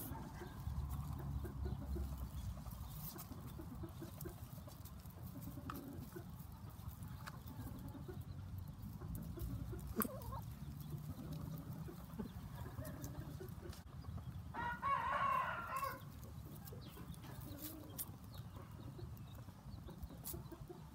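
Chickens: about two-thirds of the way in, one chicken gives a single loud call lasting about a second and a half, over a low steady rumble, with a sharp click about halfway.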